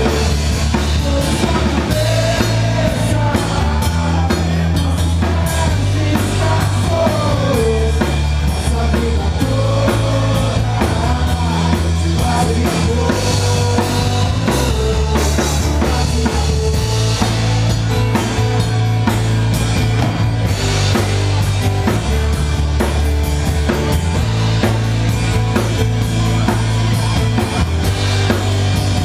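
A live rock trio playing a song: strummed acoustic guitar, bass guitar and a drum kit keeping a steady beat, with the bass notes changing every few seconds.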